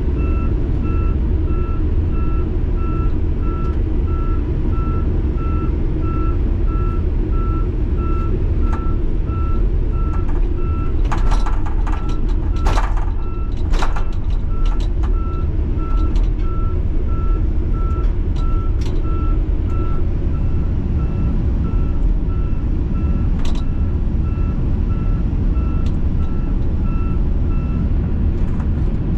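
Heavy truck's diesel engine running under a steady, evenly repeating backup-alarm beep as the truck reverses. A few sharp clanks come around the middle.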